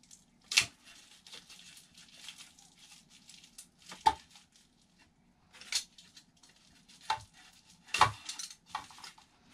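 Handling noises from a thin carbon fiber glider tail boom and its plastic packaging. There are four light, sharp taps, the loudest about eight seconds in, with soft plastic rustling between them.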